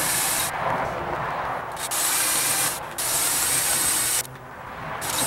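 Electric hand drill with a 1/8-inch bit boring into a steel plate, running in stretches of about a second, with lubricant sprayed onto the cut. The drilling eases off briefly about four seconds in.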